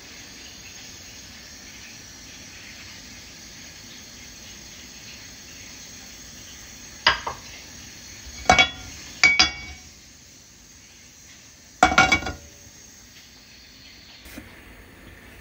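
Cookware clattering on a gas stove's grate: a nonstick frying pan and a glass oil bottle knocking and clinking in four sharp clusters, about seven, eight and a half, nine and a half and twelve seconds in, over a steady hiss.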